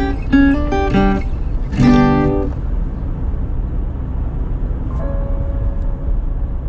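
Acoustic guitar music, with plucked and strummed notes in the first couple of seconds and a few held notes about five seconds in. Under it runs a steady low rumble of a car driving.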